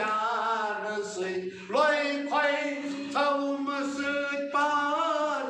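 A man singing a Kashmiri devotional song, drawing out long held vowel notes, with a step up in pitch a little under two seconds in.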